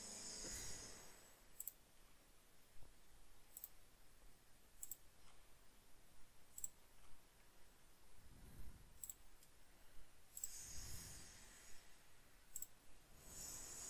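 Faint computer mouse clicks, several of them spread out and sharp. Two dull low thumps come about two-thirds of the way through.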